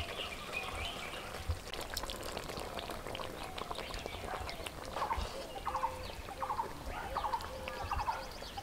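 Saffron milk poured from a cup into a pan of cooking chicken gravy, with light taps of a metal spatula against the pan. In the second half, several short bird calls sound in the background.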